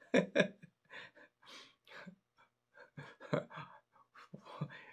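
A man's voice, soft and breathy, in short bursts.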